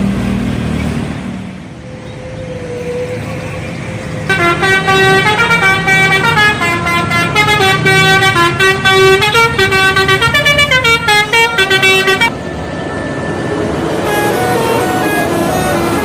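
Bus telolet horn playing a quick melody of stepping notes for about eight seconds, starting about four seconds in and cutting off suddenly. Bus engine and traffic noise run underneath, and fainter horn notes return near the end.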